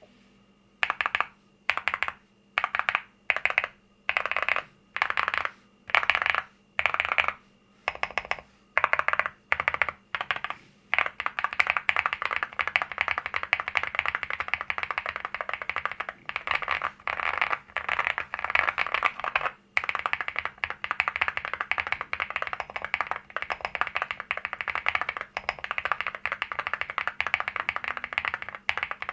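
Mechanical keyboard with Cerakeys ceramic keycaps, keys pressed singly at first, about one to two clacks a second, then fast continuous typing from about eleven seconds in. The thick, heavy ceramic caps give a deep keyboard sound.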